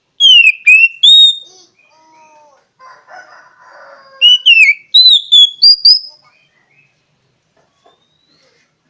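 Oriental magpie-robin (kacer) singing: two bursts of loud, clear whistled notes that sweep up and down, one near the start and one about four seconds in, with softer, lower notes between them.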